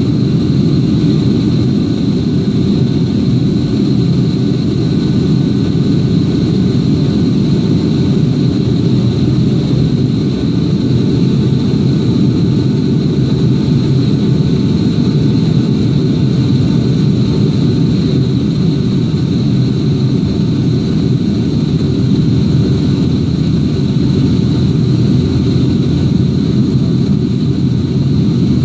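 Jet airliner cabin noise heard inside the cabin: an even, steady low rush of engines and airflow, with a faint steady high whine above it.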